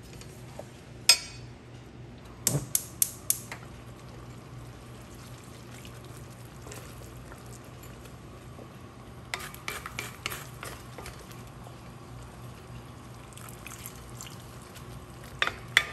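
Wooden spatula stirring thick sauce in a stainless steel wok, with sharp clacks of the spatula against the pan: one about a second in, a quick run of four around two and a half seconds, a cluster around ten seconds and two more near the end. A steady low hum runs underneath.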